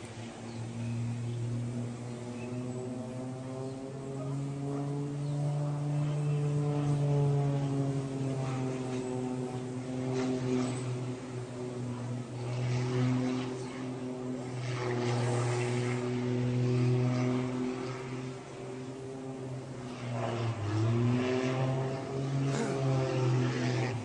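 Propeller aircraft engine droning steadily, its pitch slowly rising and falling as the plane flies past and turns, with a brief dip and recovery near the end.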